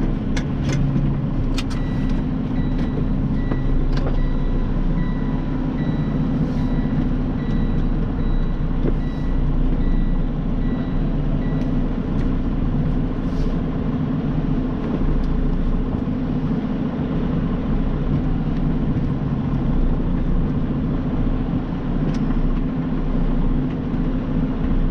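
Semi-truck cab while driving: a steady low engine and road drone. A repeated high beep sounds for about ten seconds starting near two seconds in, and a few sharp clicks are heard near the start.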